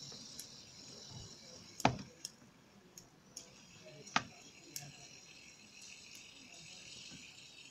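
Handheld fidget spinner being flicked between the fingers: two sharp clicks, about two and four seconds in, and several lighter ticks, over a faint steady high hiss.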